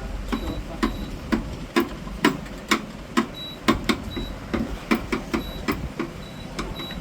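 Sharp mechanical clicking, about two clicks a second and slightly uneven, with a few brief faint high beeps between the clicks.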